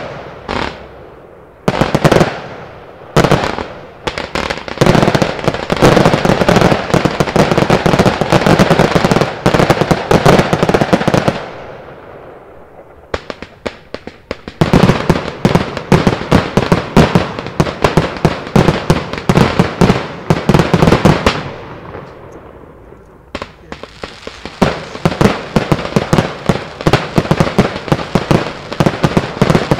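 Fireworks display: a few single bangs, then long runs of rapid-fire bangs and crackles from aerial fireworks. They come in three dense volleys, each parted from the next by a lull of two or three seconds.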